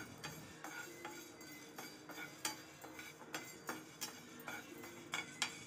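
A spoon stirring fenugreek seeds and black peppercorns as they dry-roast in a nonstick pan: light, irregular clicks and scrapes, a few a second, as the spoon knocks the pan and the seeds rattle.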